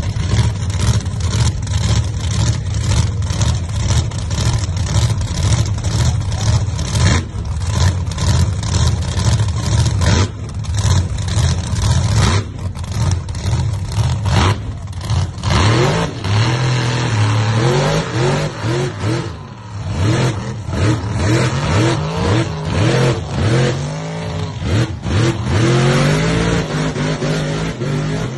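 Mega truck's big engine running hard at high revs while the truck spins its tyres in a smoky burnout. From about halfway the revs rise and fall again and again.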